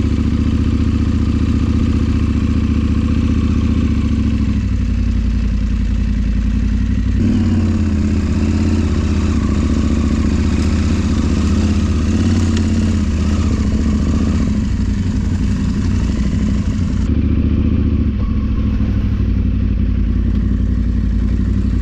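KTM Adventure parallel-twin motorcycle engine running steadily under way, with a rushing noise over it. The engine note shifts a few times, notably about seven seconds in.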